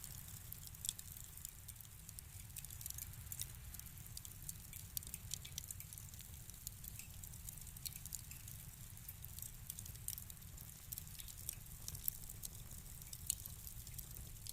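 Wood fire crackling in a fireplace: frequent small, irregular pops and snaps over a low, steady rumble.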